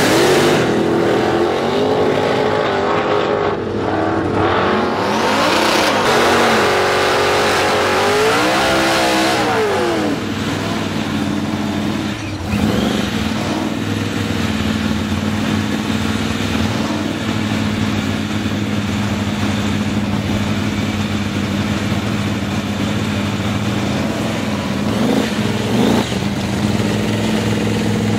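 Drag-racing vehicle engine revving, its pitch rising and falling several times over roughly the first ten seconds, then running at a steady, constant pitch for the rest.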